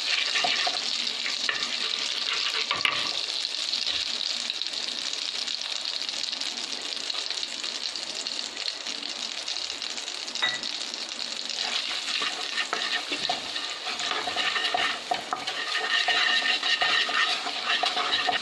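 Finely chopped ginger and garlic frying in melted butter in a nonstick kadai, a steady sizzle, stirred with a wooden spatula.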